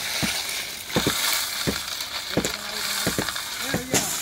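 Crushed stone aggregate being poured from sacks and a steel pan onto a gravel pile: a steady rushing hiss of stones, with several short clattering knocks.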